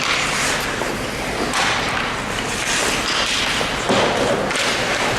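Ice hockey rink noise: thuds and several surges of hissing scrape from play on the ice.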